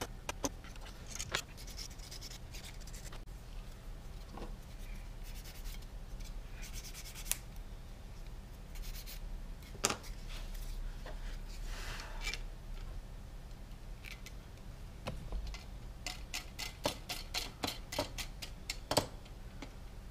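Small hand-handling sounds of a plastic propeller and the metal shaft and cone adapters of a propeller balancer: scattered sharp clicks and brief scrapes, with a quick run of small clicks near the end as the propeller is fitted back onto the shaft.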